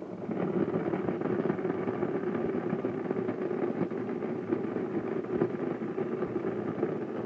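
Countertop electric blender running steadily, blending cherries and ginger into juice.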